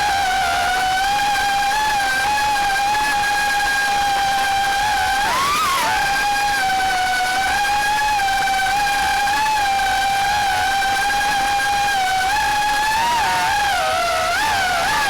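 Quadcopter drone's propellers and motors whining steadily in flight. The pitch briefly swoops up and back down about five and a half seconds in, then wavers up and down near the end as the drone manoeuvres.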